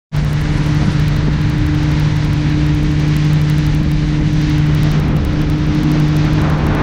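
Speedboat engine running at a steady speed as the boat cruises, one constant engine tone with a rushing hiss underneath.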